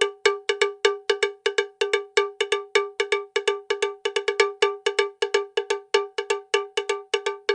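Rapid, evenly repeated bell-like metallic strikes, about five a second, each ringing briefly.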